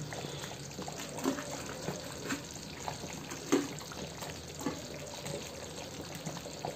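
Fried besan pakoras dropped one at a time into simmering kadhi, each landing with a soft plop about a second apart, over the faint steady bubbling of the kadhi.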